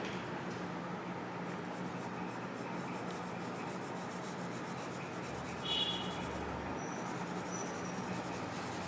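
Pencil lead scratching over paper in light, repeated shading strokes. A short high-pitched sound comes about six seconds in.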